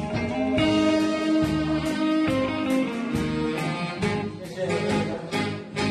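Instrumental passage of a song: guitar and sustained melody notes over a steady beat, with no singing.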